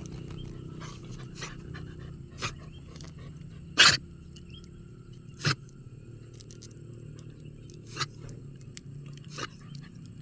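An animal with a cough and cold coughing in several short, sharp bursts, the loudest about four seconds in, over a steady low background hum.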